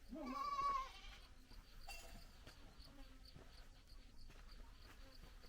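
A goat bleating once, a quavering call in the first second, followed by a faint background with light regular ticking.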